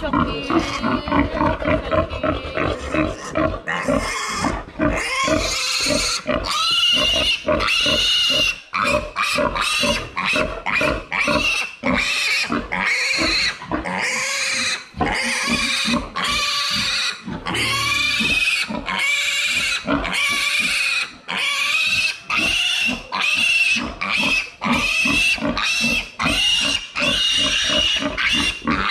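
A piglet squealing in a continuous string of shrill, high-pitched screams, one after another. It is distress squealing while the piglet is held upside down by its hind legs and castrated.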